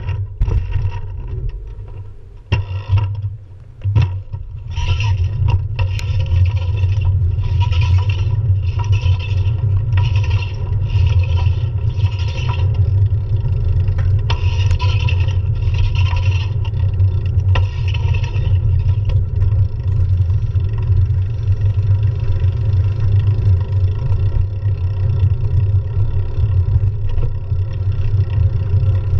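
Wind and road rumble on a camera mounted on a moving road bicycle's handlebars, a heavy steady low rumble throughout. Through the first two-thirds, short mechanical rattling buzzes from the bike repeat about once a second, then die out.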